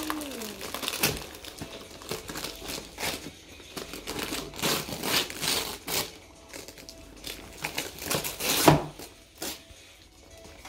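Wrapping paper being torn and crumpled off a boxed toy by hand: irregular crinkling rustles and rips, the loudest rip about eight and a half seconds in.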